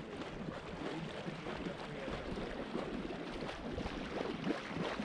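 Retriever splashing through shallow marsh water.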